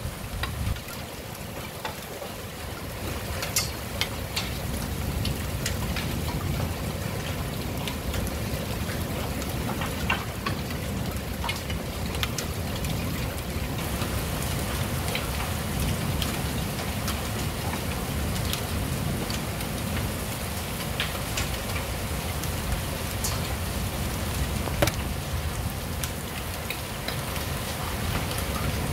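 Heavy rain falling steadily, with scattered sharp ticks of drops striking nearby surfaces. The rain swells a little about three seconds in.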